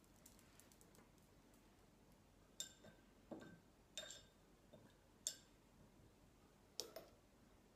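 Paintbrush clinking against a small glass ink jar: about six light taps, each with a short glassy ring, over roughly four seconds.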